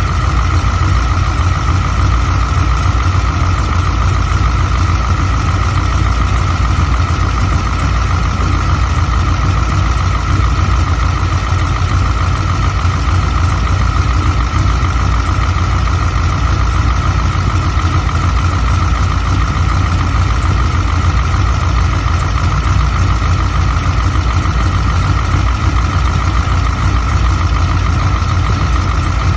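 Vehicle engine idling steadily with a constant high-pitched whine over the low rumble: the weird noise that appeared after a new alternator was installed.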